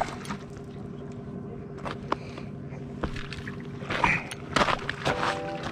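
A steady low hum runs throughout, with several sharp clicks and some light water sound. Background music comes in near the end.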